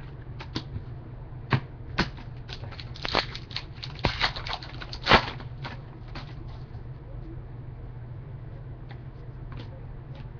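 Trading cards and pack wrappers being handled: a run of small clicks and taps, thickest in the first half and loudest about five seconds in, then only a few scattered ones. A low steady hum runs underneath.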